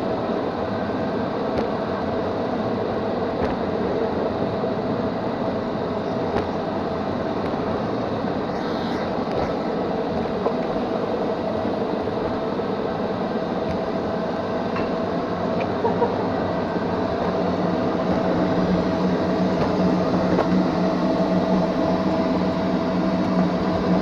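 Neato XV-21 robot vacuum running, heard from on board: a steady mechanical hum with a constant tone. It grows a little louder about two-thirds of the way through.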